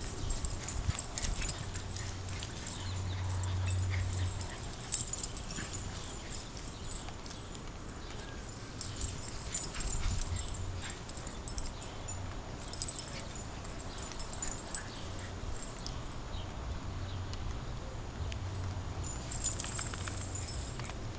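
A small schnauzer and a chihuahua running and playing in wet grass: scattered short ticks and rustling, with a low rumble that swells about three seconds in.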